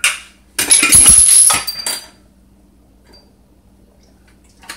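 A short knock, then about a second and a half of metal kitchenware clattering with a high ring.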